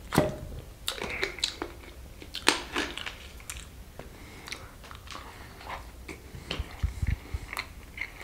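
Mukbang eating and handling sounds: scattered crisp clicks and soft knocks as crispy fried chicken pieces are picked over on a metal tray and a bottle is set down on the table, with some chewing.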